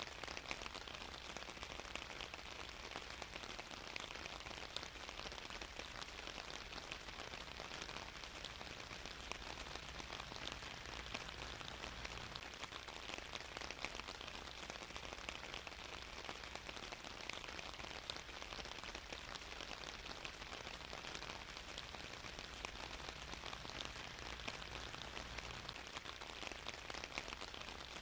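Steady rain falling and pattering on a surface, a constant even hiss with many small drop ticks.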